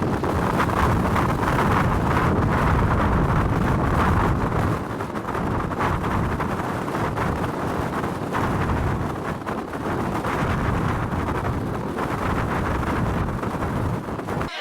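Storm-force wind buffeting the microphone: a heavy, rumbling roar that swells and eases in gusts.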